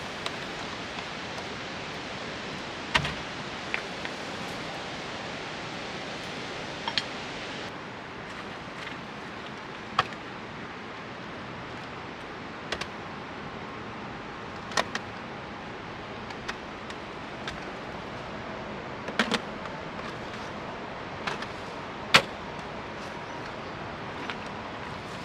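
Camp cooking being prepared: sharp, irregular clicks and knocks of utensils and cookware being handled over a steady hiss, the loudest knock near the end.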